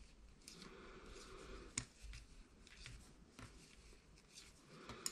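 Knitting needles clicking faintly against each other as stitches are worked, with the soft rub of wool yarn; a few sharper clicks stand out, the loudest about two seconds in and near the end.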